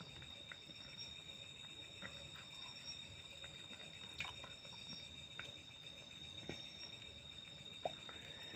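Faint, steady high-pitched chirring of insects, a continuous trill, with a few soft scattered clicks.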